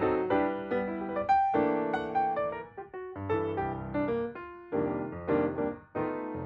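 Background music: a piano playing a gentle melody of separate notes.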